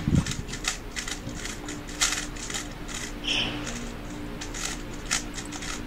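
Rapid, irregular clicking and clacking of 3x3 speed cubes being turned by hand during timed solves.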